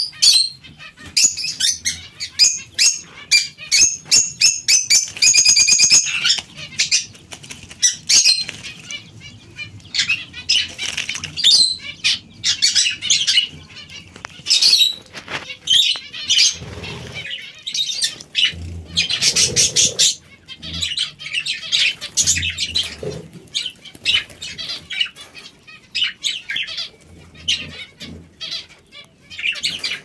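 Red-crowned kakariki bathing in a shallow water dish, beating its wings in the water in quick irregular bursts of splashing and fluttering, with a few short high calls among them.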